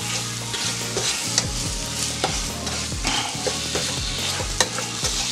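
Apple slices sizzling in butter and sugar in a nonstick frying pan while a wooden spatula stirs them, with frequent scrapes and taps of the spatula against the pan.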